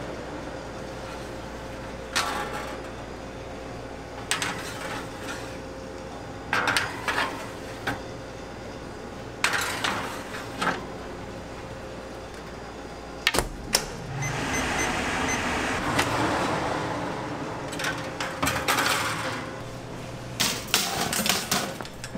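Metal sheet trays and oven doors clanking and clattering in short scattered bursts as trays of burger buns are handled at a commercial oven and proofing cabinet, over a steady machine hum with a constant tone.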